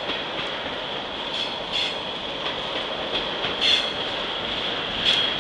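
Freight train of tank cars rolling past: a steady rumble and rush of steel wheels on rail, with a constant high-pitched squeal from the wheels. A few brief, sharper bursts stand out over it.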